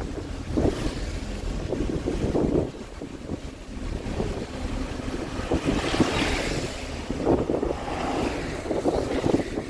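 Wind buffeting the microphone from inside a moving vehicle, over the steady rumble of the vehicle and its tyres on a wet road, with irregular low thumps throughout.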